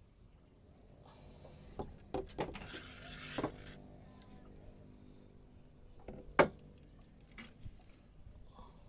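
Fishing tackle being handled on a small boat: scattered clicks and knocks, with a brief rushing hiss, and one sharp knock about two-thirds of the way through.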